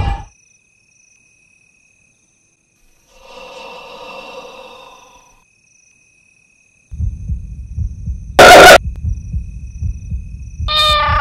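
Horror-film sound design. A drawn-out eerie tone comes a few seconds in. About seven seconds in a loud low rumble sets in, and a sudden very loud hit comes just after it. Near the end a strong wavering tone begins.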